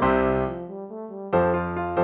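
Keyboard music in steady chords: a held chord dies away, a brief lull follows, and a new chord is struck past the halfway point.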